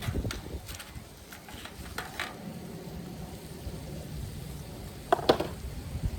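Kitchen clatter over a low rumble: a few light clicks of utensils or dishes, then a louder double clink of metal or crockery with a short ring about five seconds in.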